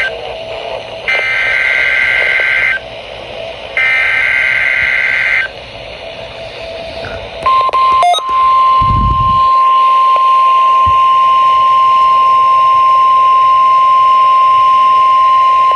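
NOAA Weather Radio test signal from station KJY 68: the digital SAME header, a harsh buzzing data burst repeated three times (the end of the first, then two more), followed about seven seconds in by the steady single-pitched warning alarm tone, which holds. A brief low thump sounds just after the tone starts.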